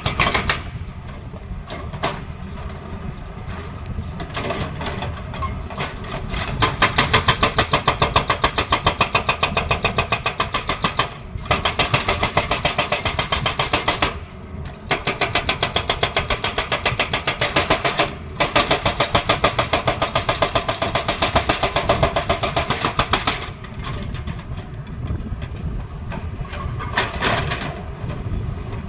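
Excavator-mounted hydraulic breaker hammering in rapid, even blows, in four runs with short pauses between them, over the Tata Hitachi excavator's diesel engine running. The engine runs alone at the start and again near the end.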